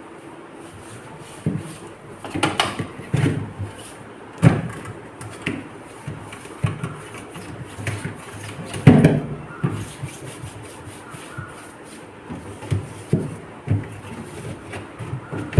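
Irregular knocks and clunks with some rubbing as things are handled and wiped inside a refrigerator, the loudest clunk about nine seconds in.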